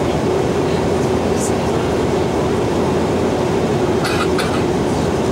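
Airbus A320 cabin noise in flight: a steady rush of airflow and engine noise with a constant hum, and two short clicks about four seconds in.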